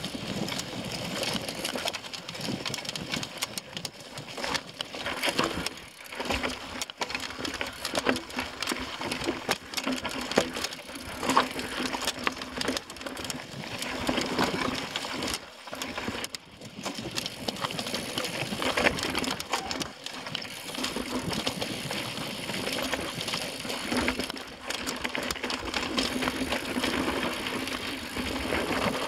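Mountain bike riding over a rough, rocky dirt singletrack: tyres crunching over gravel and stones, with the bike rattling and knocking at every bump.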